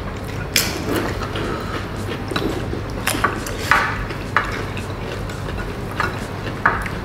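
Spoons and forks clinking against ceramic plates now and then while people eat fried rice, about nine sharp clinks in all, over a steady low room hum.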